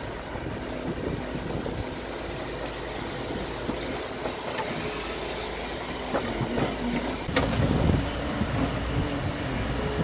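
Doosan DX140W wheeled excavator's diesel engine running under load while the bucket digs soil and stones, with hydraulic working noise. Knocks and scraping grow louder about eight seconds in.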